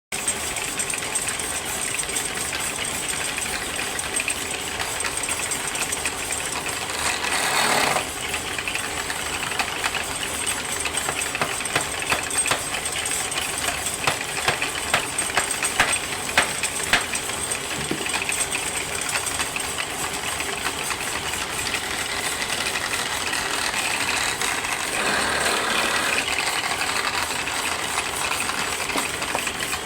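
Wood lathe running, rattling and clicking steadily as a tool works the spinning wood, with two louder stretches of a second or so, about seven and twenty-five seconds in.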